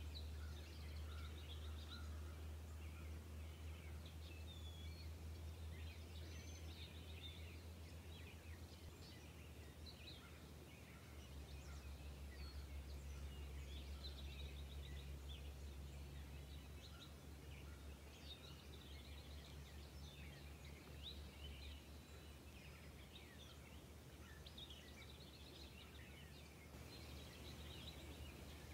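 Faint outdoor ambience: small birds chirping in scattered short calls, over a steady low rumble.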